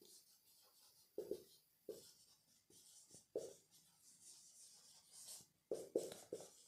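Marker pen writing on a whiteboard: a series of faint, short scratchy strokes as letters are drawn.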